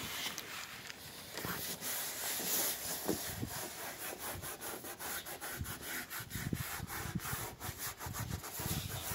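Hands rubbing and pressing a freshly glued linoleum sheet flat against a wooden panel: a continuous rasping rub made of many quick scrapes, with some dull knocks in the second half.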